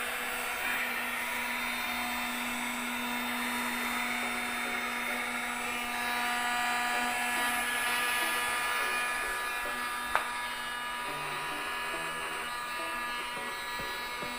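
Small two-way electric air pump running steadily, with a hum holding a steady pitch, as it inflates the first ring of a vinyl above-ground pool through its valve. A single sharp click about ten seconds in.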